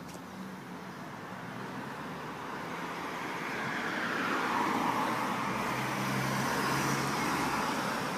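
A car driving past on the road: engine hum and tyre noise that grow louder over several seconds, are loudest about five to seven seconds in, then begin to fade.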